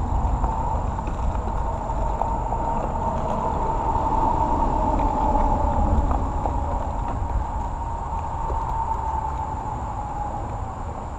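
Road traffic: a vehicle passing, its low rumble and tyre whine swelling to their loudest about halfway through, then fading.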